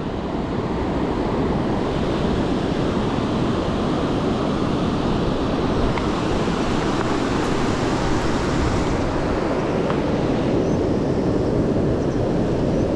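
Steady rush of mountain-stream water, an even noise with a low rumble in it.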